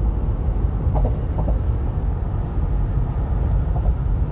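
Steady road and engine rumble heard inside a moving car's cabin, mostly low-pitched and even.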